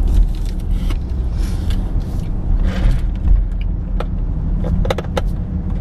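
Steady low rumble of a moving car heard from inside the cabin, with brief rustles and a few small clicks about four to five seconds in.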